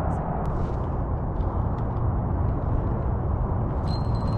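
Wind buffeting the camera microphone, a steady low rumble with a few faint ticks. Near the end a thin, steady high whine starts.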